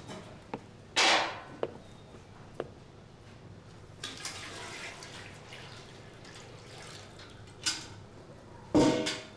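Water sloshed and poured from a metal pail into a washtub: a splash about a second in, a few small knocks, then a steady pour for several seconds, with a louder knock near the end.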